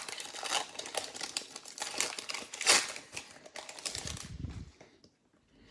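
Pokémon booster pack's foil wrapper crinkling and crackling as it is torn open by hand, with one sharp loud crackle near the middle. A soft low thump follows about four seconds in.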